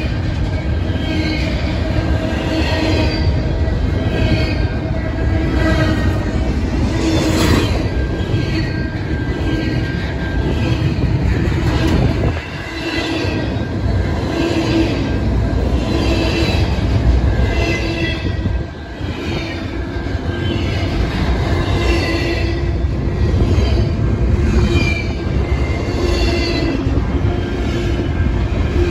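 Freight train of double-stack container cars rolling past at close range, steel wheels rumbling and squealing on the rails. The sound dips briefly twice, about a third and two-thirds of the way through.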